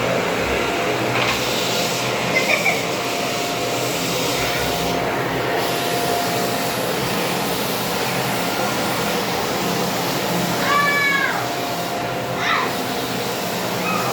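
Vacuum cleaner running steadily with a constant whine. About eleven seconds in, a short high cry rises and falls over it, with a couple of fainter chirps elsewhere.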